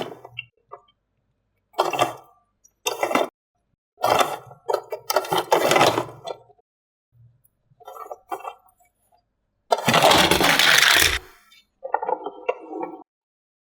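Plastic toy pieces and diecast toy cars being handled: a string of short clinks, clatters and scrapes. About ten seconds in there is one longer, louder noisy stretch of about a second and a half.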